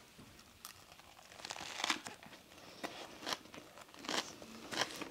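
Close-miked eating sounds: a bite tearing into a fresh rice paper roll filled with raw lettuce, sesame leaves, chives and cilantro, then chewing. Irregular crisp crunches and crinkles from the leafy filling, the loudest about two seconds in.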